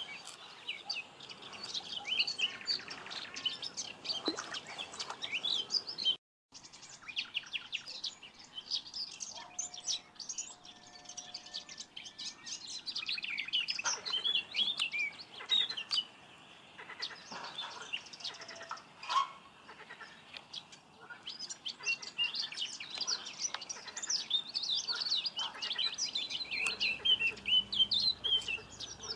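Small songbirds chirping and singing, several at once with overlapping trills. The sound drops out briefly about six seconds in.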